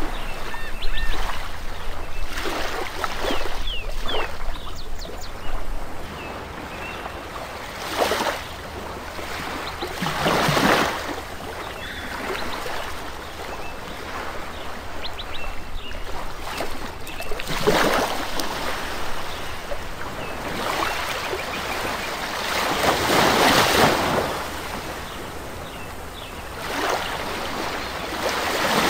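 Rushing, surf-like water noise that swells and fades every few seconds, with a few faint high squeaks in the first few seconds.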